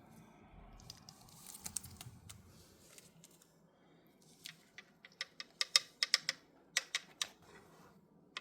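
Pet parrot's beak clicking and tapping against a toy: faint rustling at first, then about a dozen sharp, irregular clicks in the last few seconds.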